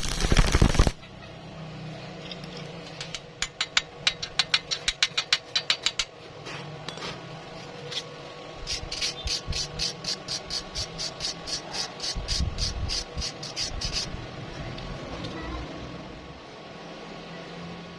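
A loud burst of noise cuts off about a second in. Then come two runs of quick, even strokes, about six a second, typical of cleaning slag off a fresh E6013 stick weld with a wire brush or chipping hammer.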